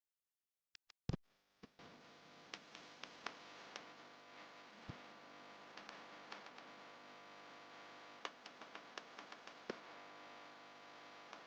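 Rain: a faint steady patter with scattered drops ticking sharply on hard surfaces, starting after about a second and a half of near silence.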